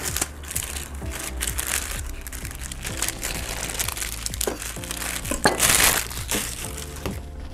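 Crinkling and rustling as a bunch of fresh parsley is handled, with a louder burst about five and a half seconds in, over steady background music.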